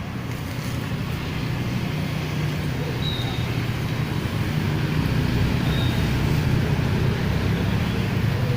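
Road traffic noise: a vehicle engine's steady low hum with road noise, slowly growing louder.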